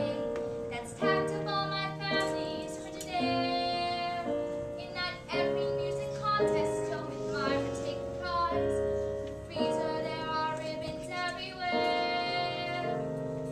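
Children singing a show tune with musical accompaniment, in long held notes.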